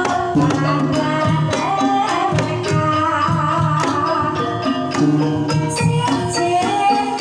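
Live Banyumasan gamelan music for tayub: a female sinden sings over hand-played kendang drum strokes and the ringing melodic lines of the gamelan.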